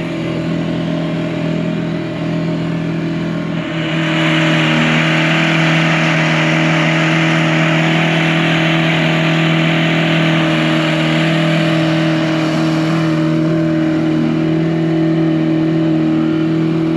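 50 horsepower Mercury outboard motor running steadily at a constant pitch, driving a small motorboat under way. A rushing hiss of wash and wind grows much louder from about four seconds in until about thirteen seconds.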